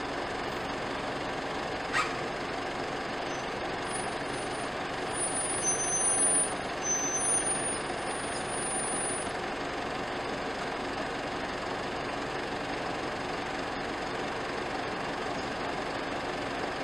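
Steady running noise of cars idling on the road, with a sharp click about two seconds in and a few louder noises between about five and seven and a half seconds.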